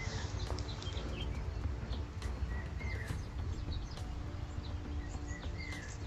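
Outdoor background: a steady low rumble with a faint hum, and short bird chirps a few times, around the start, in the middle and near the end.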